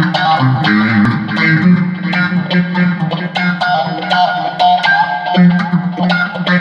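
Funk instrumental music: electric guitar playing over a bass line, with a steady beat of sharp hits.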